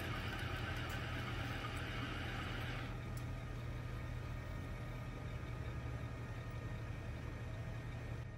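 Metal lathe running with a steady low hum while a single-point threading tool cuts a steel rod dry, giving a hissing cutting noise. The hiss stops abruptly about three seconds in as the tool comes out of the cut, leaving only the lathe's hum.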